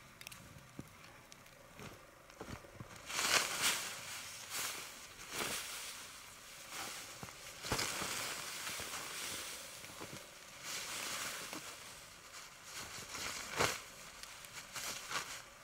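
Irregular rustling and crunching handling noises, with louder bursts about three seconds in and again near the end.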